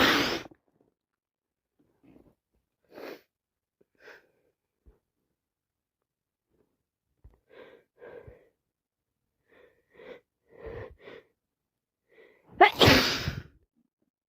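A woman with sinusitis sneezing loudly twice, once at the very start and again near the end after a brief intake of breath, with short, quieter nasal sounds in between.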